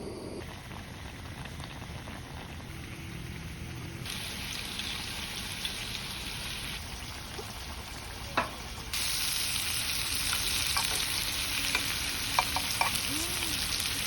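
Gopchang frying in a pan, a steady sizzle that gets louder about four seconds in and again about nine seconds in. A few sharp clicks sound over it.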